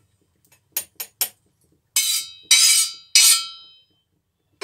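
Metal spoon clinking and scraping against a steel tawa griddle while roasted cumin seeds are worked off it: three quick light taps about a second in, then three louder ringing scrapes over the next second and a half.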